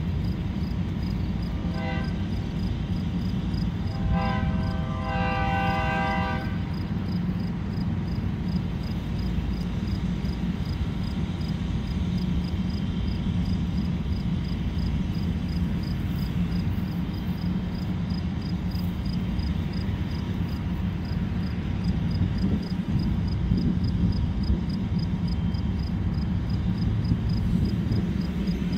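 Distant diesel locomotive air horn sounding for crossings: a short blast about two seconds in, then a longer chord from about four to six and a half seconds in. Both sit over a steady low rumble.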